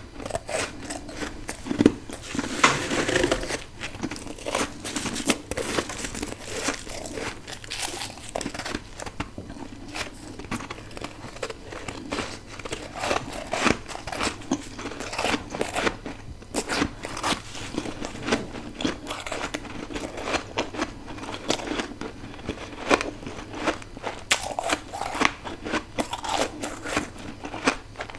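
Close-miked crunching of freezer frost being bitten and chewed: many sharp, crisp crunches and crackles at an irregular pace, densest about two to four seconds in.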